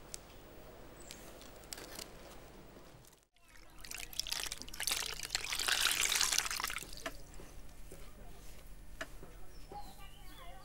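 Water poured and splashing over cupped hands, starting suddenly about three and a half seconds in and running for about three seconds before dying down to faint trickling.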